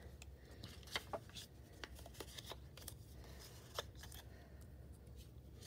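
Small paper squares being handled and laid down on a tabletop: faint, scattered paper taps and rustles, a dozen or so small clicks at irregular spacing.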